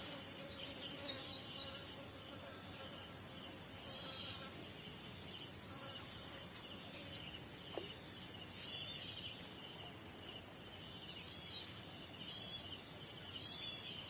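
A chorus of insects in a steady high-pitched drone that never breaks, with short chirps every few seconds.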